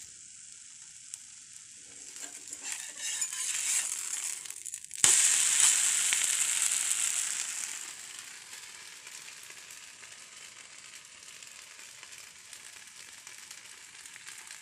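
Chakuli pitha (rice-batter crepe) sizzling on a hot pan. A steady hiss grows about two seconds in, then flares up suddenly and loudly about five seconds in and fades back to a steady sizzle over the next three seconds.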